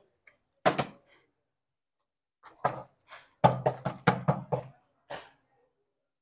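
Short knocks of a plastic water bottle against a wooden cabinet top: a single knock about a second in, then a quick run of several knocks in the middle and one more after it.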